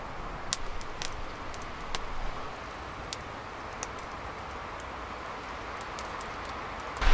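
Wood campfire crackling: a handful of sharp pops and snaps over a steady low background.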